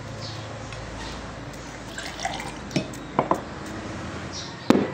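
Liquid being poured into a glass, with a few light clinks of glass or utensils and a louder knock near the end.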